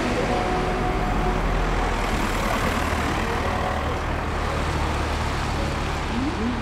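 Cars driving past one after another on a street, a steady traffic noise.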